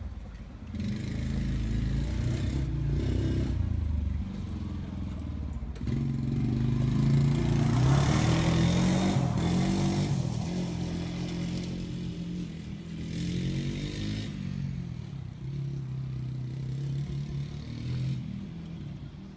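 Honda TRX90 quad's small four-stroke single-cylinder engine running as it is ridden around, its pitch rising and falling with the throttle, loudest about eight seconds in as it passes close. It is running on a newly fitted carburetor, and the owner says it runs awesome.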